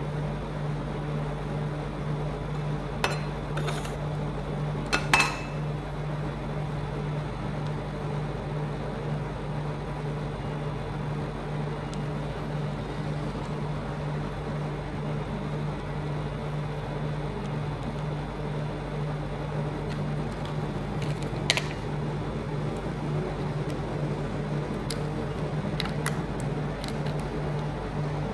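A steady low mechanical hum, with a few sharp clinks of utensils, about three seconds in, again around five seconds and once more past the twenty-second mark.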